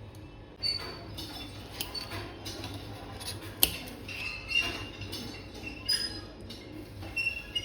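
Kitchen utensils and containers being handled: irregular taps and clicks, with a few short ringing clinks of glass or metal.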